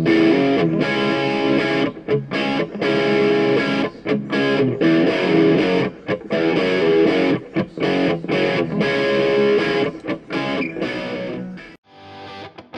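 Outro music led by guitar with a steady rhythm; near the end it breaks off briefly and carries on in a lighter, choppier passage.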